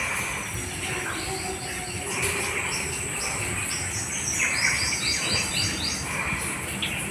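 Outdoor ambience of insects and birds: a steady high insect trill throughout, with birds chirping and a quick run of short repeated chirps in the middle, over a low steady background rumble.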